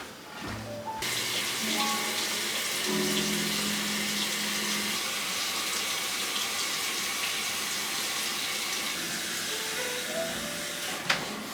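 Water running steadily from a tap into a sink, starting about a second in, with light background music.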